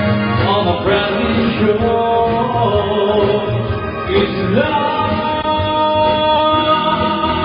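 A man singing into a microphone while playing a Korg X5 synthesizer keyboard. He holds long notes, with a rising swoop in his voice about four seconds in.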